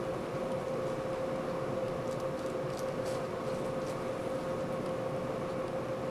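Steady machine hum with a constant mid-pitched tone over a low hiss, with a few faint soft ticks about two to three seconds in.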